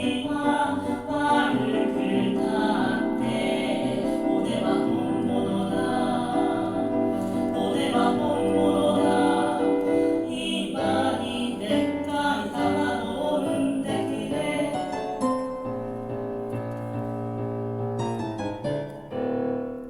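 A choir sung by one multi-tracked voice, with piano accompaniment. The voices stop about fifteen seconds in, and the piano plays a short closing passage that ends on a held chord.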